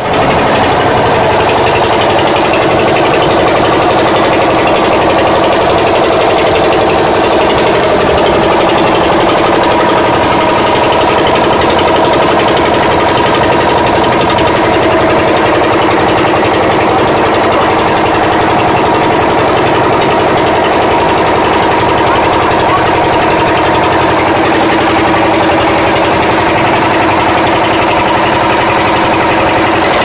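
Small river boat's engine running steadily while under way, loud and close.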